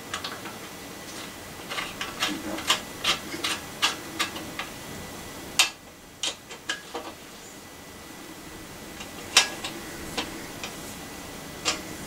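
Light metallic clicks and knocks of hand tools working on a bicycle crank: a run of quick clicks, about three a second, then a few sharper single knocks spread out.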